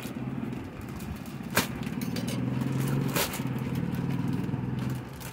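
A plastic courier mailer being cut open by hand, with two sharp clicks about a second and a half apart, over a steady low engine-like hum.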